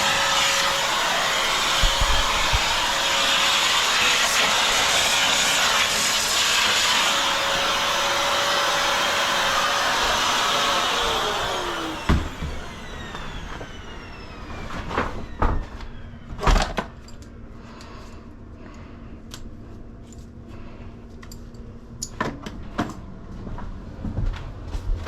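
Vacuum cleaner running steadily with a constant whine, switched off a little before halfway and winding down with a falling whine. After that, scattered knocks and clatters.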